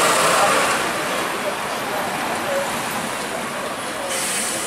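Street traffic with double-decker buses and cars passing close, mainly engine and tyre noise, loudest at the start. A short hiss comes near the end.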